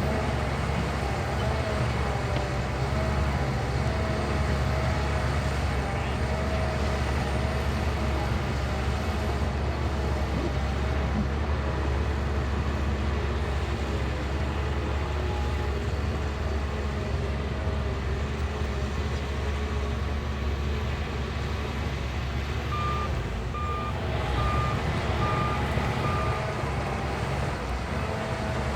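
Shantui bulldozer's diesel engine running steadily under load. Near the end a reversing alarm beeps about six times in an even row.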